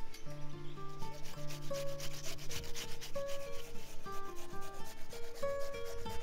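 Onion rubbed on a flat metal hand grater in quick repeated rasping strokes, over background music.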